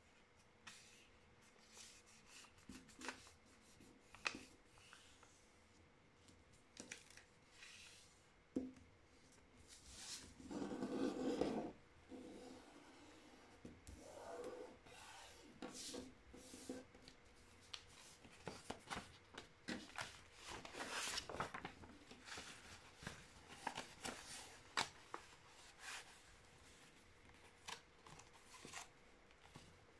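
A sheet of A4 printer paper being folded and creased by hand: short rustles and scrapes as fingers smooth and press along the folds, with a louder rustle of the sheet being handled about a third of the way in.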